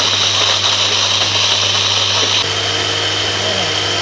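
Cookwell 600 W bullet nutri blender running steadily, its wet grinding blade blending coconut pieces with a little water: a steady motor hum under a high whine. The whine drops slightly in pitch about two and a half seconds in.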